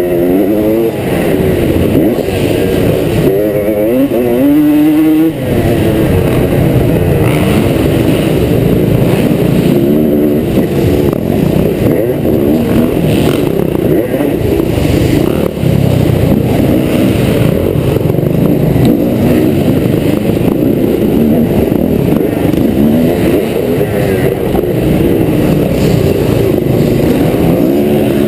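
A 2003 Honda CR250 two-stroke single-cylinder motocross engine heard close up from on the bike, revving up and down hard as it is ridden round a dirt track. The throttle is snapped shut briefly about five seconds in, then opened again.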